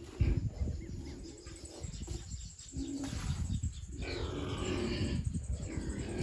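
Pigs grunting, several rough calls in a row with short breaks between them.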